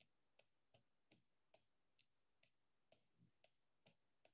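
Near silence with faint, short clicks repeating about two or three times a second.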